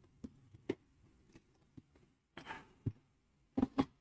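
Scattered light clicks and taps of hard plastic being handled, with a brief rustle about two and a half seconds in and two louder clicks close together near the end.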